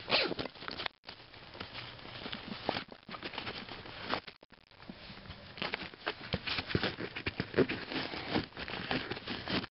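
Rummaging through a soft tackle bag: rustling fabric and plastic packages with irregular clicks and knocks of tackle being handled, close to the microphone. The sound cuts out briefly about one second in and again around four and a half seconds in.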